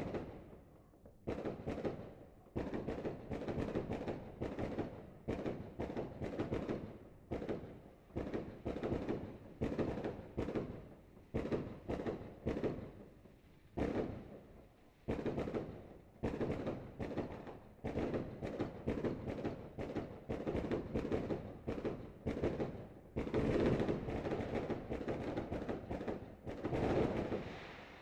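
Dense barrage of fireworks and firecrackers: many sharp bangs in quick succession, each trailing off in echo, with brief lulls about seven and fourteen seconds in, dying away at the end.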